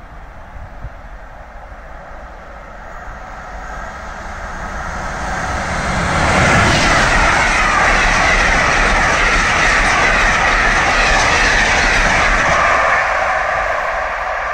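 Train of passenger coaches hauled by a Class 90 electric locomotive passing at speed. The noise builds from about two seconds in, is loudest from about six seconds to thirteen as the coaches go by, then starts to fade as the train draws away.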